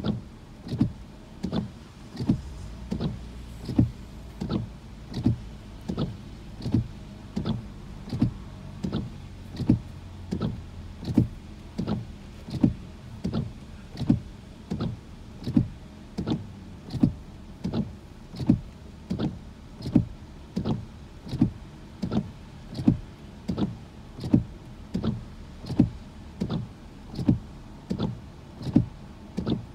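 Car windshield wipers sweeping across a rain-wet windshield, heard from inside the car: a regular swish-and-thud about every 0.7 seconds, over a low steady hum.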